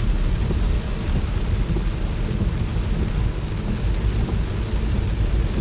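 Heavy rain and running floodwater making a steady rushing noise, with a deep low rumble underneath.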